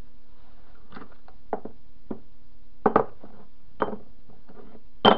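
Steel jaw blocks of a CV-joint puller being handled on a wooden board: a series of separate knocks and clinks of metal on wood and on metal, about seven, with a close pair about three seconds in and the loudest near the end.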